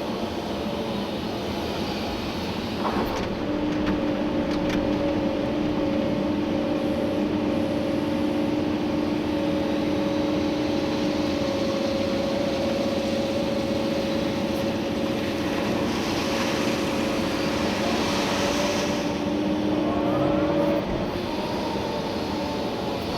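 Komatsu PC290-11 excavator's diesel engine and hydraulic pumps running steadily as heard from inside the cab, with a steady whine, a louder hiss for a few seconds past the middle and a short rise in pitch near the end.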